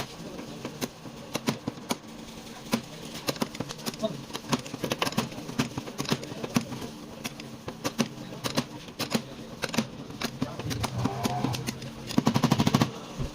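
Irregular sharp taps and clicks of tools working a car's body metal during dent and pillar repair, with a rapid run of taps about twelve seconds in, over a low steady hum.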